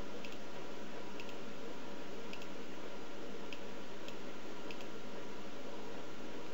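Faint computer mouse clicks, roughly one a second and unevenly spaced, over a steady hiss.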